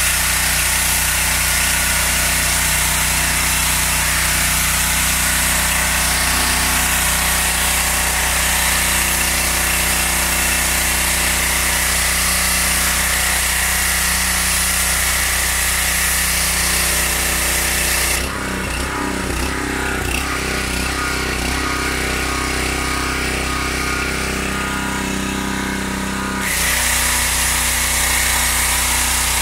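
Mechpro 7hp petrol pressure washer running steadily, its engine and pump under load, with the high-pressure spray hissing from the lance onto asphalt. About two-thirds of the way through, the spray hiss stops for roughly eight seconds while the engine keeps running, then the spray starts again.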